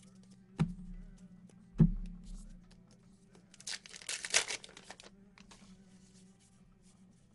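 Two dull thumps on a tabletop, then baseball card packaging torn open with a crinkling rip about three and a half seconds in, lasting about a second and a half.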